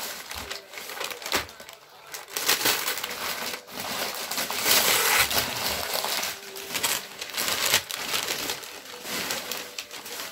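Gift wrapping paper being torn off a present by hand and crinkling, in a run of irregular rips, the loudest about five seconds in.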